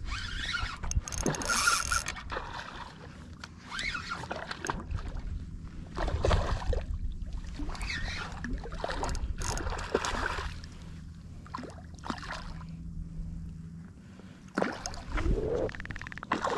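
Hooked redfish thrashing and splashing at the surface of shallow water in repeated bursts as it is played on the line, over a low steady hum that fades out near the end.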